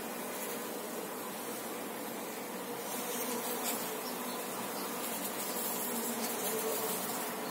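Honeybees buzzing around an open hive frame of comb lifted out of the colony: a steady, dense hum that grows a little louder about halfway through.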